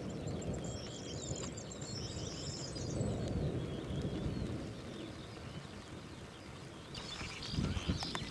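Songbirds chirping and singing over a steady low rumble during a thunderstorm; the rumble swells about three seconds in, and a few louder knocks come near the end.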